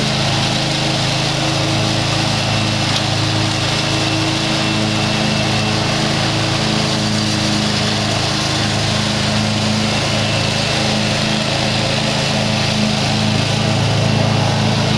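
Engine of a convertible walk-behind commercial lawn mower running steadily as it mows through tall grass and weeds.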